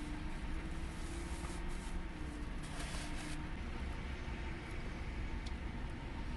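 Steady low rumble of a car, heard from inside its cabin, with a hiss that drops away about three and a half seconds in.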